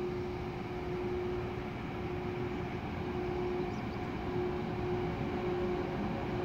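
Electric locomotive approaching slowly at the head of a freight train: a steady rumble with a humming tone that comes and goes, growing slightly louder as it nears.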